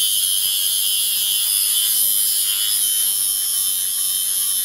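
Dremel rotary tool running steadily at speed with a 50 mm diamond disc grinding a carbide engraving graver: a constant high grinding hiss over a steady motor hum.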